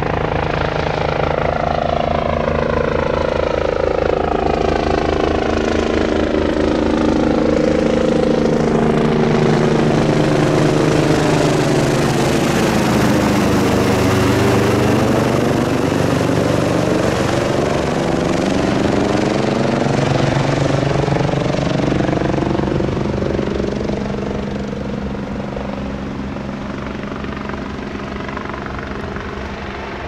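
MBB-Kawasaki BK117-A3 twin-turbine helicopter flying low overhead: steady rotor beat with turbine whine, its pitch shifting as it passes directly overhead about halfway through. The sound then fades as it moves away near the end.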